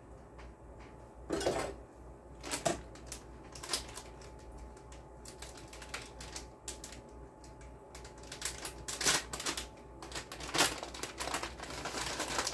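Kitchen handling noises: scattered sharp clicks and light knocks of things being picked up and set down at the counter. Near the end they thicken into a denser crinkling as a plastic bag of shredded cheese is handled.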